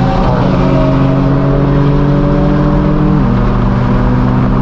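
Straight-piped BMW M4 F82's twin-turbo inline-six running under steady throttle through its non-resonated AWE Track Exhaust, a loud drone that rises slightly and then steps down in pitch about three seconds in.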